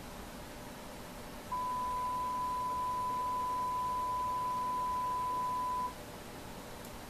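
A single steady electronic tone, one unchanging mid pitch, begins about a second and a half in and cuts off sharply about four seconds later, over a low constant hiss.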